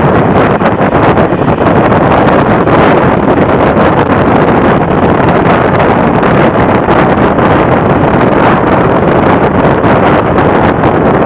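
Wind rushing over the microphone held out of a moving passenger train's window, over the steady rumble of the carriage running along the track.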